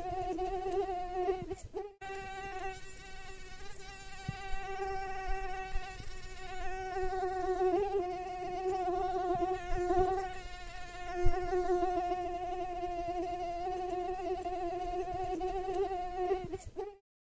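Mosquito wingbeat whine: a steady, high buzzing drone whose pitch wavers slightly. It breaks off briefly about two seconds in and cuts off just before the end.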